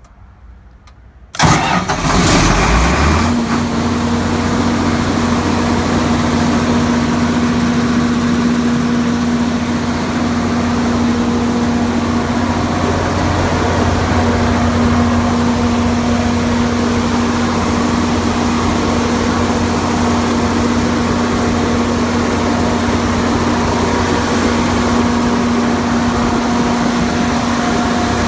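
Cummins 8.3-litre six-cylinder diesel engine of a 200 kW generator set starting about a second and a half in: it cranks briefly, catches and spins up over about two seconds, then runs at a steady speed.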